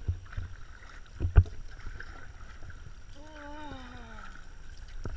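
An inflatable PVC kayak being paddled: knocks of the paddle against the boat and water, with one loud knock about a second and a half in, over a low rumble of wind on the microphone. A brief falling tone is heard about three seconds in.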